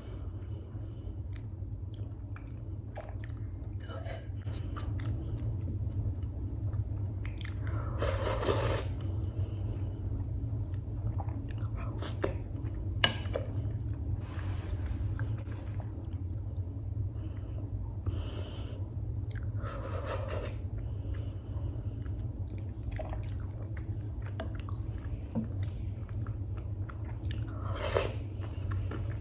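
Close-miked chewing and mouth sounds of someone eating freekeh with beef: soft wet clicks and smacks, with a few louder bursts about a third of the way in, around two thirds in and near the end, over a steady low hum.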